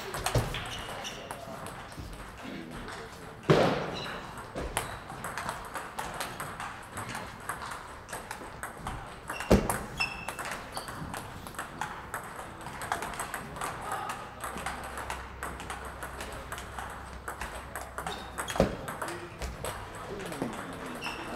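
Table tennis balls clicking off bats and tables in rapid rallies across many tables, echoing in a large hall. Two louder, sharper knocks stand out, several seconds apart.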